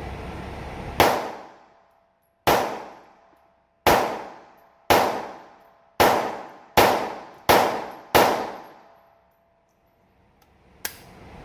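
CZ P10C pistol in .380 fired eight times at an uneven pace, with reloaded ammunition, each shot sharp and followed by a long echoing decay. A lighter metallic click comes near the end.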